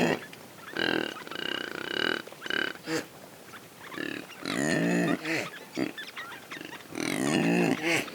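Impala calling: three rough, throaty calls, each with a higher whistling tone over it, come about a second in, midway and near the end, with a few shorter calls between them.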